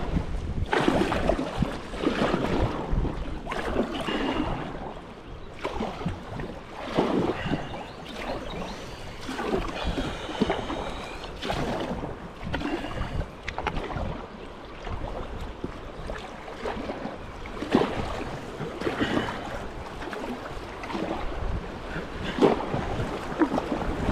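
Kayak paddle dipping into the water and pulling through in repeated strokes about a second apart, with wind buffeting the microphone.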